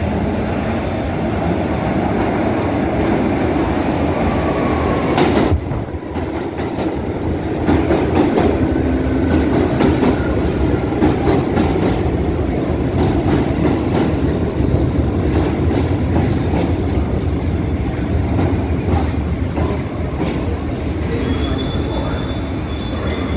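New York City IRT subway train pulling into the station and running along the platform, a loud steady rumble of wheels on rail with rapid clicking. A high-pitched wheel squeal begins near the end.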